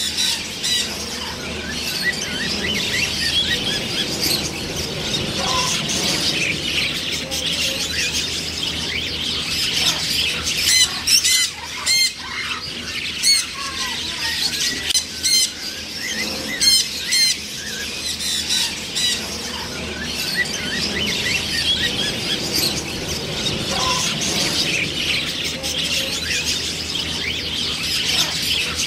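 Macaws squawking: harsh, loud calls break out every few seconds over a steady din of many birds chattering and calling.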